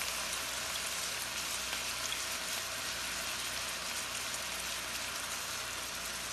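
Pieces of beef tendon and shank sizzling steadily in hot oil in a frying pan as dark soy sauce is spooned over them.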